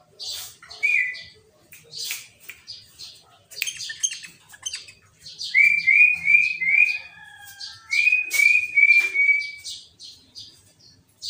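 Sooty-headed bulbul (kutilang) singing hard and fast: a stream of sharp high chirps, with two runs of four loud, repeated slurred whistles in the middle. The song is filled out with phrases copied from the greater green leafbird (cucak ijo).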